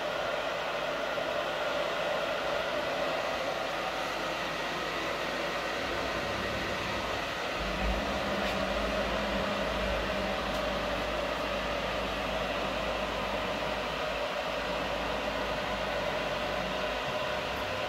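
Steady mechanical whir with several steady tones from a CNC-converted PM-940 milling machine running. A deeper hum comes in about six seconds in and stays.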